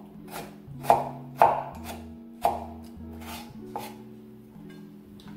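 Kitchen knife chopping diced tomato on a wooden cutting board: sharp knocks about every half second, thinning out and stopping about four seconds in.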